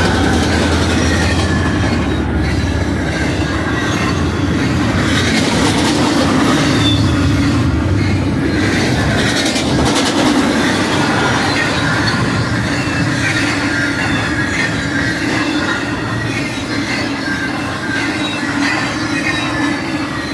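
Double-stack intermodal well cars of a BNSF freight train rolling past close by: a steady rumble of steel wheels on rail, with high, wavering wheel squeal. The low drone of the departing diesel locomotives fades out in the first couple of seconds.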